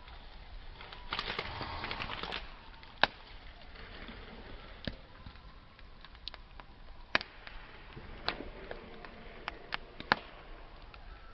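Wood campfire crackling, with sharp single pops scattered through over a steady hiss. There is a short, denser run of crackling about a second in, and the loudest pop comes about three seconds in.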